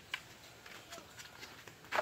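A few light clicks and knocks of hard game discs and a cue against a wooden disc-pool table, with one sharper knock near the end.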